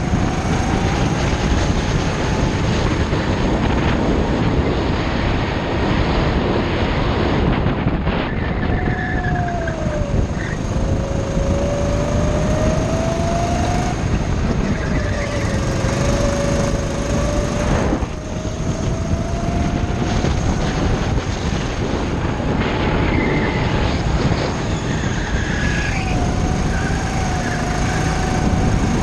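Go-kart engine running at speed under a dense rush of wind and road noise, its pitch repeatedly climbing and then falling as the kart speeds up and slows.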